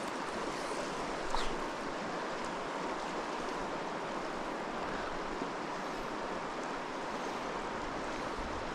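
Creek water rushing steadily, a constant hiss, with one short sharp click about a second and a half in.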